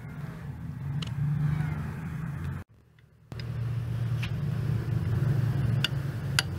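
Steady low mechanical rumble with a few sharp clicks of metal tools scattered through it; the rumble cuts out briefly about three seconds in.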